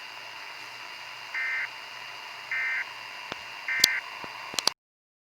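Emergency Alert System end-of-message data bursts: three short, identical warbling digital tone bursts about a second apart, over steady radio hiss, marking the end of the weather radio test message. A few sharp clicks follow, and then the audio cuts off abruptly near the end.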